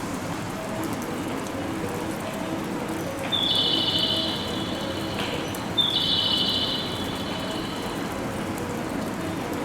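Two high-pitched whistle blasts, each about a second and a half long, the second starting about a second after the first ends, over a steady hiss of rain and station noise.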